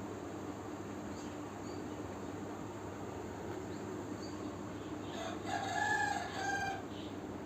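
A single drawn-out bird call of about a second and a half, in two parts, over a steady background hum.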